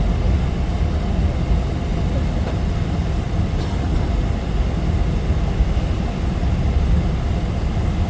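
Steady low rumble inside a jet airliner's cabin while it taxis after landing.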